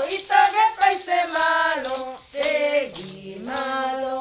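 Women singing a Guna preschool song, with a maraca shaken in time to the tune.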